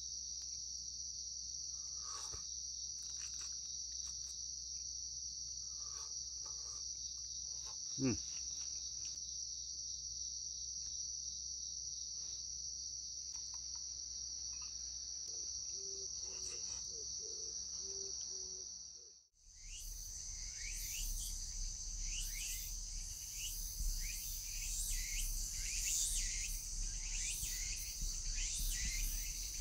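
A dense, steady, high-pitched chorus of crickets and other night insects. About eight seconds in there is a short falling sound, and after a sudden break at about nineteen seconds the chorus goes on with many quick crackles and a low rumble underneath.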